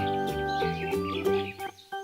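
Background instrumental music with held notes that change about every half second.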